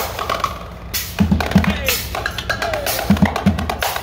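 Two street drummers playing a fast, loud rhythm: dense stick strokes on a snare-type drum, with deep thumps in pairs from a large bass drum. A few short falling tones sound over the drumming.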